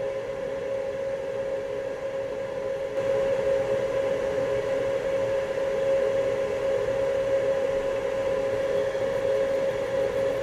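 A small fan motor at the soldering bench runs steadily with a steady whine and a rush of air. It gets louder about three seconds in.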